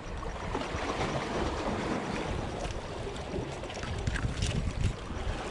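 Wind noise on the microphone, an uneven low rumble, over a steady rush of water.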